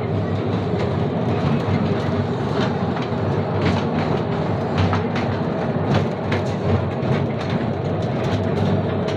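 The Khewra salt mine's small tourist train running through a rock-salt tunnel, heard from an open carriage: a steady rumble of wheels on rails with scattered clacks and rattles.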